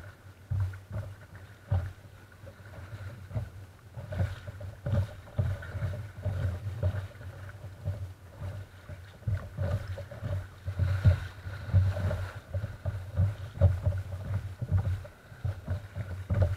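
Sea water slapping and splashing against a kayak's hull as it is paddled through choppy water, in irregular low thuds and surges.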